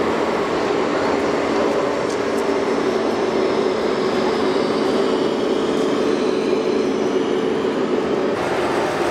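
Steady, even rumbling din with a low, engine-like drone running through it and no distinct knocks or events, typical of a busy indoor RC model hall.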